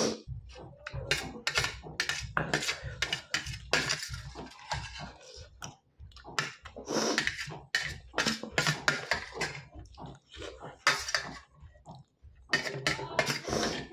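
Metal fork clinking and scraping on a steel plate in many irregular strokes while noodles are eaten, with mouth sounds of eating in between.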